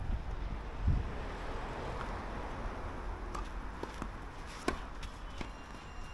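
A dull thump about a second in, then a few sharp knocks of a tennis ball off racket strings or the court, each about two-thirds of a second apart, over a steady outdoor noise.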